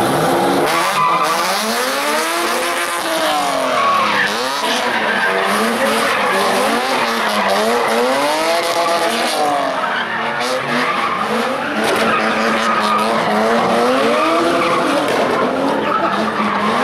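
Drift cars sliding around the course in tandem: engine revs rise and fall every couple of seconds as the throttle is worked, over continuous tyre screeching.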